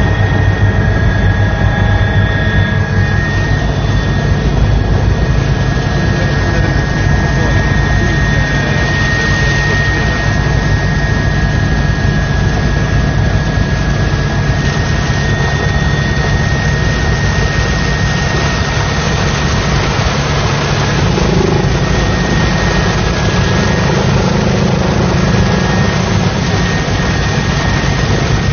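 Steady engine noise heard inside an aircraft cabin, a constant low rumble with a thin high whine over it.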